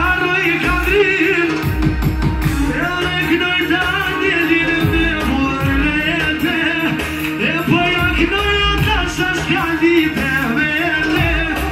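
Live amplified music: a man singing into a microphone over loud backing music with a heavy, pulsing bass beat and a wavering, ornamented melody.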